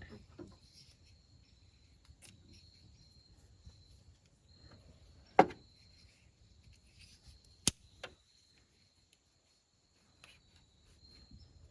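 Hands working a rubber vacuum hose and tape in an engine bay: a few sharp clicks and knocks, the loudest about five seconds in. Under them runs a faint steady high-pitched drone.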